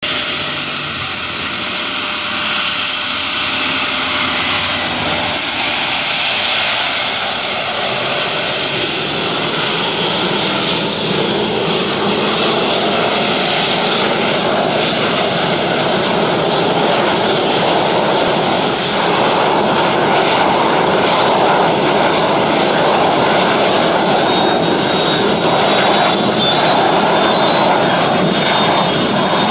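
Helicopter gas turbine engine in a van on a test run, with a loud high-pitched whine over a steady rushing noise. The whine climbs in pitch between about ten and fourteen seconds in as the turbine speeds up, then holds steady.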